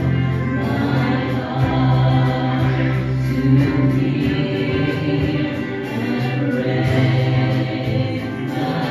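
Live worship band: a group of male and female singers singing a hymn together over acoustic guitar, with a steady held bass note underneath.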